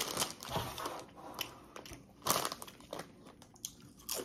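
Crunching and crinkling from eating and handling food close to the microphone, with a louder burst about two seconds in and a short one near the end.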